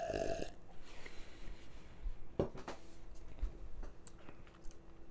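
A man drinking beer from a glass, with faint swallowing sounds, then a short sharp knock about two and a half seconds in as the glass is set down on the bar.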